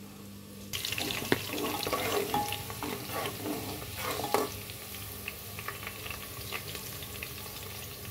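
Sliced onions sizzling in hot oil in an aluminium pressure cooker, frying toward golden brown, while a metal slotted spatula stirs them and clicks and scrapes against the pot. The sizzling starts suddenly about a second in, after a quieter moment.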